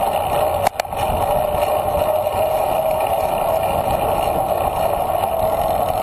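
Steady wind rush and rolling road noise on an action camera's microphone during a bicycle ride at about 18 mph, with a brief dropout under a second in.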